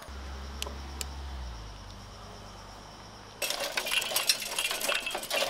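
A low hum fades out over the first second and a half. About three and a half seconds in, a dense, busy run of metallic clinking and rattling starts suddenly and carries on.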